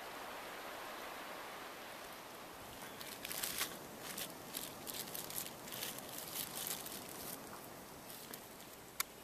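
A plastic bag crinkling and rustling in someone's hands, in short irregular crackles for several seconds after a faint steady hiss, with a single sharp click near the end.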